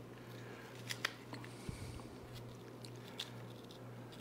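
Raw onion chunks being pulled apart into layers by hand on a wooden cutting board: faint crisp snaps and squeaks, the sharpest about a second in and again past three seconds, over a steady low hum.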